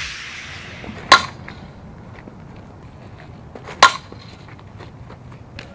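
Softball bat hitting the ball twice, about two and a half seconds apart, each a sharp crack with a brief ring, over a steady outdoor background.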